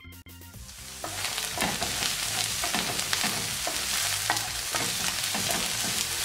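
Mushrooms frying in olive oil in a pan, sizzling, while a wooden spoon stirs them with irregular scraping clicks. The sizzle swells about a second in.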